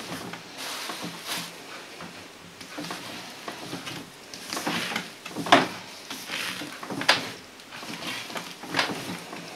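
Hands kneading a large mass of soft, sticky yeast dough for paska, with irregular squishing and dull thumps as the dough is folded and pressed onto a plastic-covered table. Two sharper knocks stand out about midway through.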